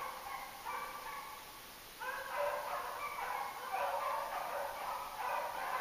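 Hounds baying as they run a hare's trail, the calls overlapping, easing off during the first two seconds and picking up again about two seconds in.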